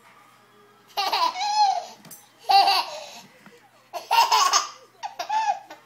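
Baby laughing in four high-pitched bursts, the first about a second in.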